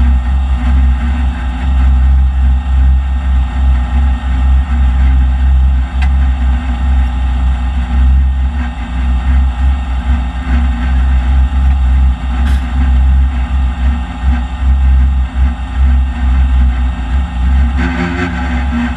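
Ford FE big-block V8 in a 1968 Ford Falcon drag car idling loud and steady, heard from inside the car's cabin.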